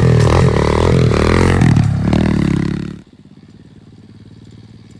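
Dirt bike engine running loud close by, its pitch shifting up and down as the rider works the throttle. About three seconds in it drops off suddenly to a much quieter, low steady engine sound.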